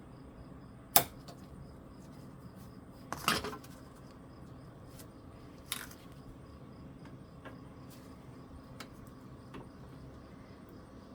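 Small metal parts and hand tools clinking and knocking as they are handled and set down on a workbench. There is one sharp clink about a second in, a short cluster of knocks about three seconds in, another clink near six seconds, then a few faint taps.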